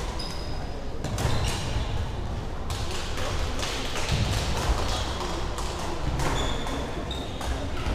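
Badminton rackets striking shuttlecocks on several courts, a quick irregular series of sharp hits that echo in a large sports hall, with a few brief high squeaks of shoes on the wooden floor.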